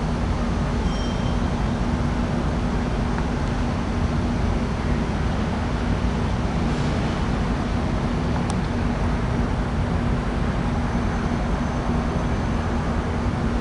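Air conditioner running: a steady rushing noise with a constant hum underneath.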